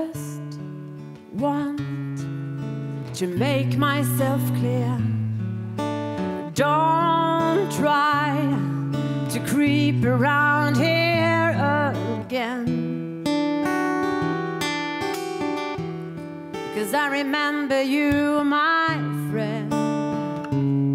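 A woman singing with a wavering vibrato to her own steel-string acoustic guitar. The voice drops out for a few seconds past the middle, leaving the guitar alone, then comes back near the end.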